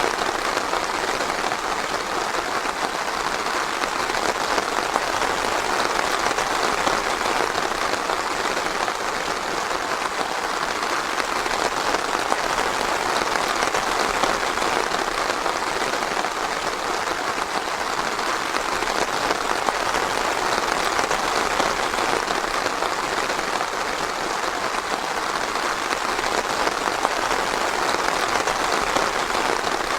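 Steady rain falling in a forest, a dense even patter of drops with no thunder.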